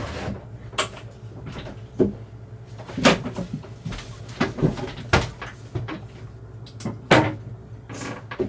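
A string of irregular knocks and clunks, some close together, like things being handled and doors or lids shutting, over a steady low hum.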